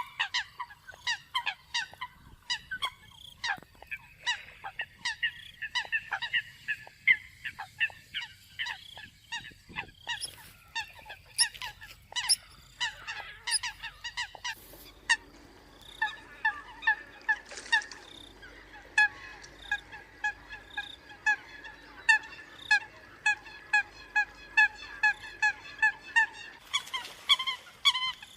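Eurasian coot calling: a steady run of short, nasal, honking notes, about two to three a second. A faint steady hum sits under the calls from about halfway through until near the end.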